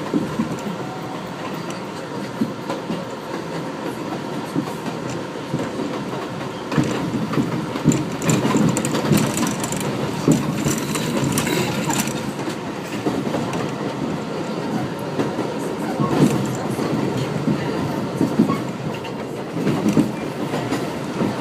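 New York City 7 subway train running along the track: a steady rumble with irregular knocks from the wheels over the rails, getting louder about seven seconds in.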